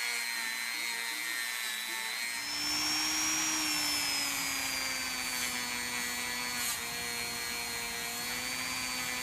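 Small power-tool motor running steadily with a whine, polishing metal parts. About two and a half seconds in its pitch rises and the grinding noise grows, then it settles a little lower and runs on.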